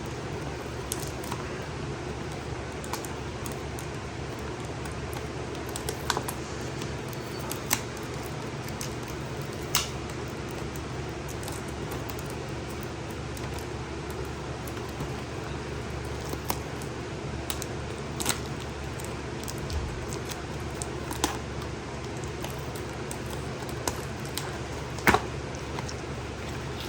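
A package being opened and plastic cable-management clips and parts handled: scattered clicks and rustles, the sharpest near the end, over a steady low hum.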